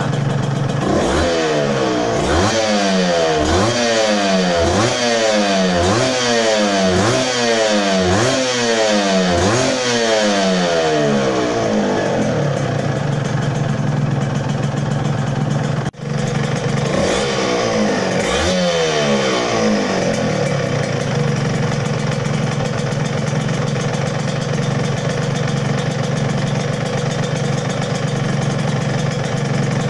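Yamaha TZM 150's freshly overhauled two-stroke single-cylinder engine being revved lightly, about once a second for some ten seconds, each rev rising and falling in pitch, then settling to a steady idle. After a brief break there are two more quick revs before it idles again.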